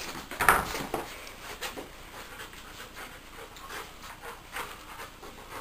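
Labrador retriever panting and scuffling about while playing with a stuffed toy, with one louder scuffle about half a second in.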